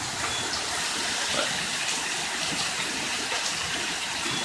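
Heavy rain pouring down in a steady rush, with drops pattering and water running off.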